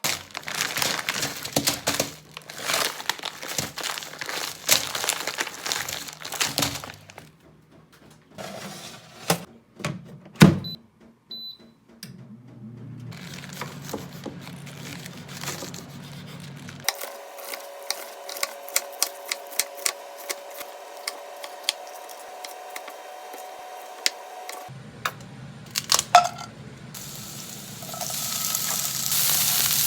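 Kitchen sounds in a row: packaging crinkling and rustling, a few knocks and a sharp thunk, two short electronic beeps, a steady appliance hum with small clicks, and food beginning to sizzle in a pan near the end.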